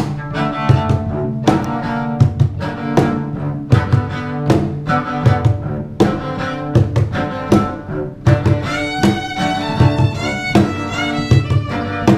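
Music with bowed strings playing low notes over a steady beat; a higher string line with sliding notes comes in about two-thirds of the way through.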